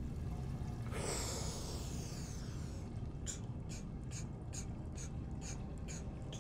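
A freediver's fast, even breathing, about two breaths a second, starts about three seconds in over a low steady rumble. A falling whoosh comes about a second in.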